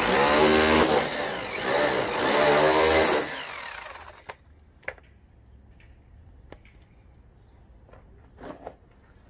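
Corded drill fitted with a chisel bit running hard for about three seconds against a rusted steel sliding-door sill rail, its motor pitch wavering under load, then winding down. A few light knocks follow.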